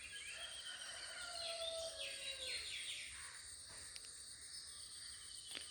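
Faint outdoor ambience of birds calling in short falling chirps during the first few seconds, over a steady high insect buzz.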